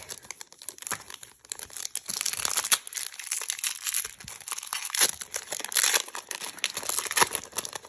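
Foil wrapper of a Pokémon trading card booster pack being torn open and crinkled in the hands: irregular crackling and tearing that grows denser after the first second or so.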